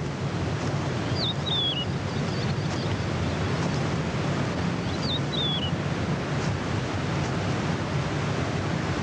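Steady wind-like rushing ambience of open grassland, with a bird's short two-part falling call heard twice, about four seconds apart.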